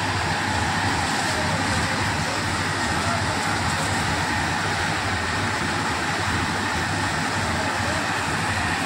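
Steady rushing noise of fire hoses spraying water and foam onto a burning power transformer, with a low steady hum underneath.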